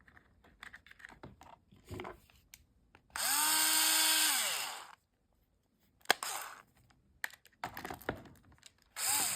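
Battery mini chainsaw's electric motor run in a short test burst of under two seconds, spinning up and winding down, then started again near the end. This is a trial run after the bar and chain have been refitted. Small handling clicks and taps come between the runs.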